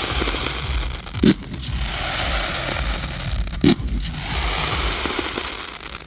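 Fireworks display: dense continuous crackling with two loud bangs, about a second in and again a little over two seconds later, the crackle dying away near the end.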